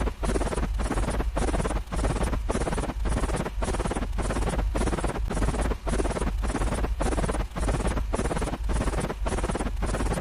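A short, noisy sound effect repeated over and over, about twice a second, with a steady low hum underneath.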